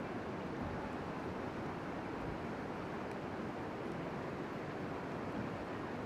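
Steady rush of whitewater rapids, an even, unbroken roar of fast-flowing river water.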